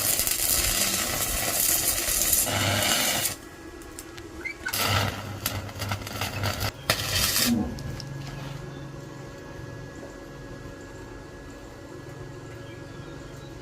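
Power grinder working the steel of an axe head: two spells of harsh, even hiss, each about three seconds long, with a short pause between them, then only a faint low hum.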